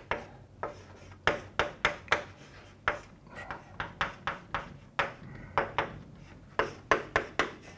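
Chalk writing on a chalkboard: an irregular run of sharp taps and short scratches, several a second, with a brief pause about five seconds in.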